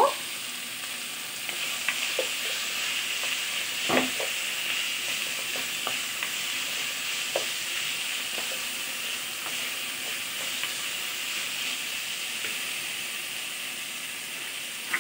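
Potatoes, jackfruit seeds and onions sizzling steadily in hot oil in a frying pan, with a wooden spoon stirring and knocking against the pan now and then; the sharpest knock comes about four seconds in.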